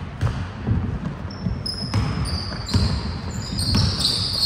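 Basketball game on an indoor court: a ball bouncing on the floor in repeated thuds, with sneakers squeaking on the court, the squeaks coming thicker in the second half.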